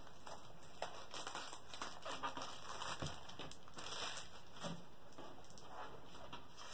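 Clear plastic packaging and a rolled canvas crinkling and rustling as they are handled, with scattered light taps and clicks.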